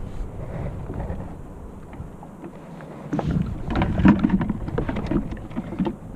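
Wind rumbling on the microphone, then from about three seconds in a quick run of splashes and knocks of water at a kayak.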